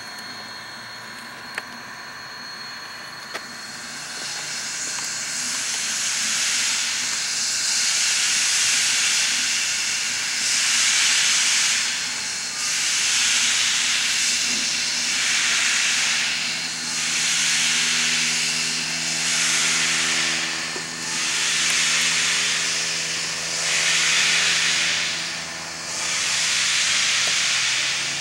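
Steam locomotive letting off steam in long hisses that swell in a slow rhythm, about one every two to two and a half seconds. A low steady hum joins about halfway.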